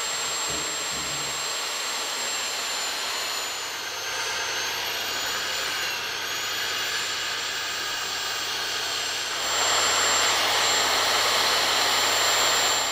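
Magnetic-base drill with an annular cutter boring through steel plate: the electric motor runs steadily with a thin high whine over the cutting noise. The cutting grows louder about two-thirds of the way through.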